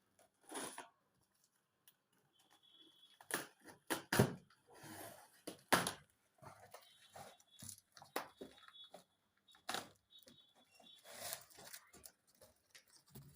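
Packaging being cut and torn open by hand: rustling wrap and tearing plastic, broken by scattered sharp knocks and clicks.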